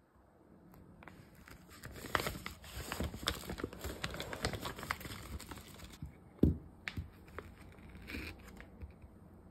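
Plastic food pouch crinkling and rustling as it is torn open and the frozen patties are pulled out, with one dull thud about two-thirds of the way through as a patty is set down on the cutting board.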